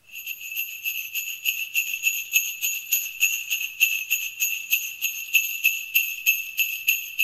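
Jingle bells shaken in an even, steady rhythm, about four or five shakes a second, all at one bright, high pitch.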